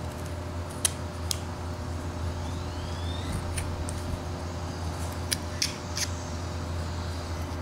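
Carving knife slicing into a wooden block, several short, sharp clicks as chips snap off, over a steady low hum.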